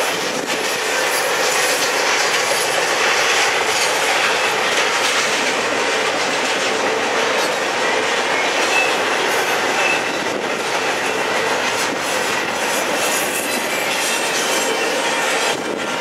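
Double-stack intermodal well cars rolling past: a steady rush of steel wheels on rail, with faint wheel squeal now and then.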